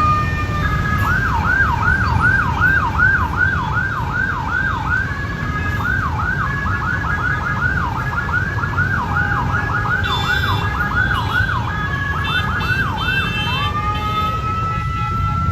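Emergency vehicle siren switching from a slow wail into a fast yelp, sweeping up and down about two to three times a second, then going back to a long rising wail near the end, over the low rumble of heavy road traffic.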